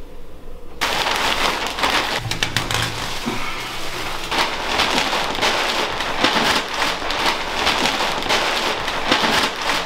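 Clear plastic sheeting crinkling and rustling as it is handled, a dense run of crackles.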